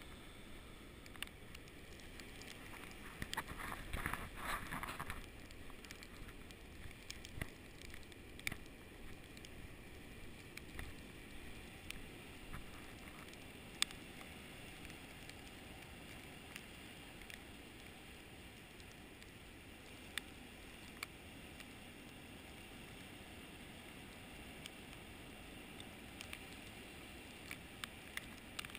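Snowstorm wind as a faint, steady hiss, with scattered light ticks and crackles, and a louder rustling stretch about four seconds in.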